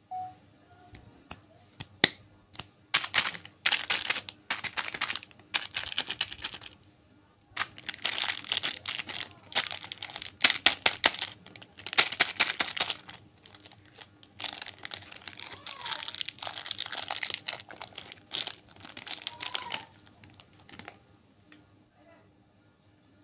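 Plastic lollipop wrappers crinkling and tearing as Chupa Chups lollipops are handled and one is unwrapped, in several bursts of crackling with short pauses between, quieter near the end.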